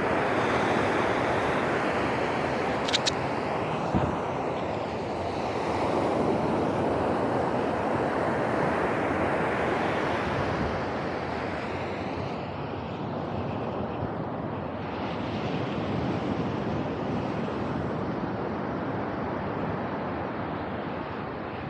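Ocean surf breaking and washing up the beach, a steady rushing noise, with some wind on the microphone. Two short sharp clicks about three and four seconds in.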